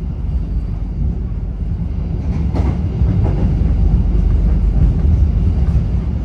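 Passenger train running: a steady low rumble, with a few faint knocks around the middle.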